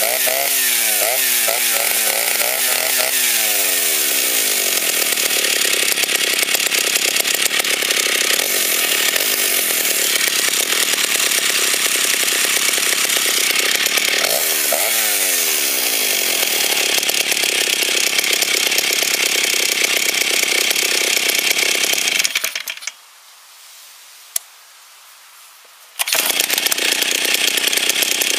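Stihl 08 S chainsaw's single-cylinder two-stroke engine, revved up and down in quick throttle blips during the first few seconds, then running steadily, with another quick rev around the middle. Late on, the sound drops away abruptly for about three seconds, then the running saw returns at full level.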